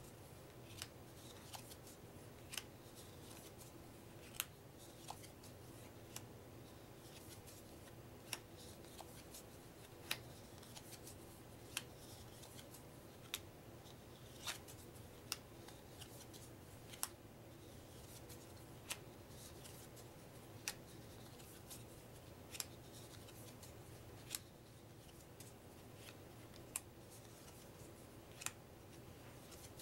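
Plastic-coated UNO playing cards laid one at a time onto a pile on a wooden table, each card giving a short, sharp snap roughly every one and a half to two seconds, over a faint steady hum.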